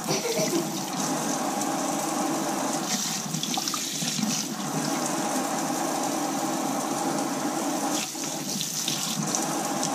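Kitchen faucet running steadily into a stainless steel sink, the stream splashing over pieces of tuna being rinsed by hand.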